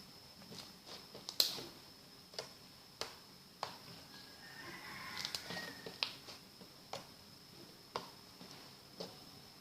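Slime being pressed and poked, giving sharp little pops and clicks about once a second, over a faint steady high-pitched tone.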